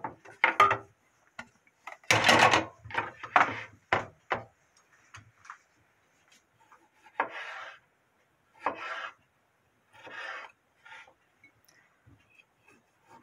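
A ceramic platter and utensils are shifted and set down on a wooden cutting board, making the loudest knocks and scrapes in the first few seconds. Then a kitchen knife slices cherry tomatoes on the board: about four separate short cuts, each a brief scrape of the blade against the wood.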